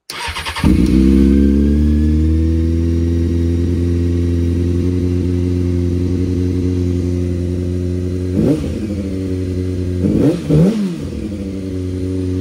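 2002 Honda CBR600 F4i's inline-four engine cranking briefly on the starter and catching, then idling steadily. The throttle is blipped once about eight seconds in and twice more a couple of seconds later. It runs now that the broken fuel-pump wire at the ECU pin has been repaired.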